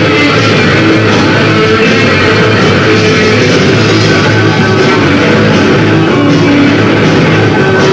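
Rock band playing live, a loud instrumental stretch led by electric guitar over bass.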